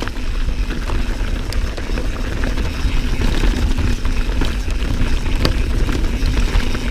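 Mountain bike rolling over rocky trail: a steady low rumble of wind buffeting the microphone and tyre noise, with scattered sharp clicks and rattles from the bike and loose stones.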